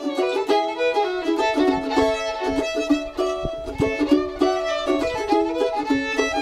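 Fiddle and mandolin playing a tune together: a bowed fiddle melody over steady picked mandolin notes.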